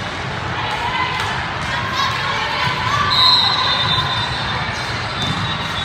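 Echoing sports-hall hubbub during an indoor volleyball match: players' and spectators' voices and calls, with balls thudding on the court. About three seconds in, a high-pitched tone lasts for about a second.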